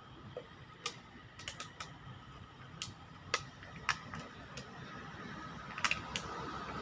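Irregular sharp clicks and ticks, about a dozen, over a faint background hum that grows louder near the end.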